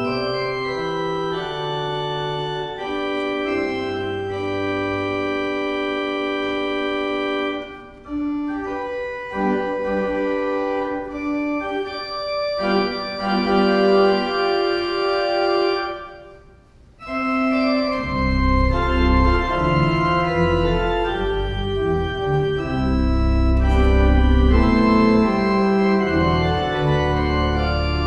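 Church pipe organ playing a slow piece in held chords. It breaks off briefly past the middle, then comes back fuller, with deep pedal notes sounding under the chords.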